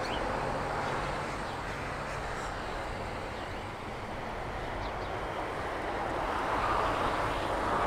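Outdoor traffic noise: a steady hiss of road traffic, with a vehicle drawing nearer and growing louder over the last few seconds.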